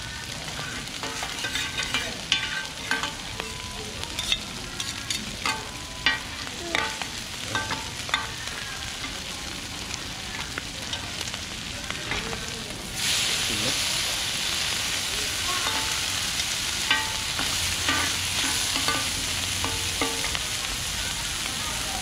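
Mussel pancake sizzling in oil on a large flat steel pan, with metal spatulas repeatedly scraping and tapping the pan, some strokes ringing briefly. About thirteen seconds in, the sizzle suddenly gets louder and stays loud as the pancake is turned and chopped on the hot pan.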